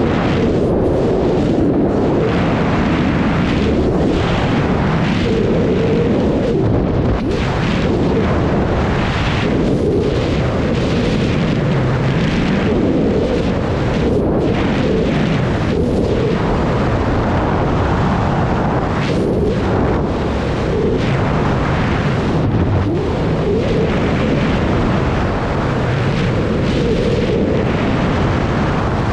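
Freefall wind buffeting the camera's microphone during a skydive: a loud, steady rush of air with a wavering tone running through it.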